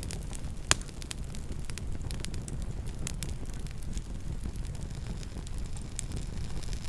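Campfire crackling, with many small snaps over a steady low rumble and one loud pop just under a second in.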